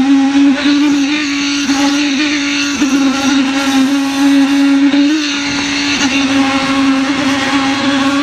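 Concrete poker vibrator running in fresh concrete: a loud, steady mechanical hum with one strong pitch, wavering slightly now and then.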